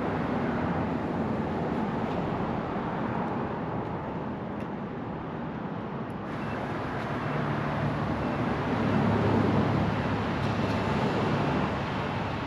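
Motorcycle riding at speed: engine running under steady wind and road noise, with an abrupt change in the noise about six seconds in.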